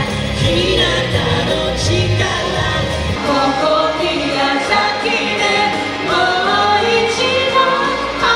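Live pop band performance: a woman sings the lead with a backing vocal over electric bass and keyboard.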